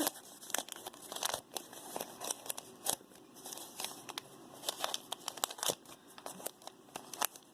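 Small plastic bead bags crinkling and rustling as they are handled, with many irregular small clicks.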